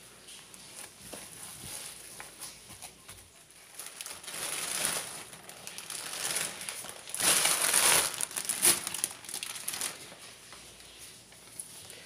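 Plastic bread bag crinkling and rustling as slices of sandwich bread are taken out, in two louder spells about four and seven seconds in, the second the loudest.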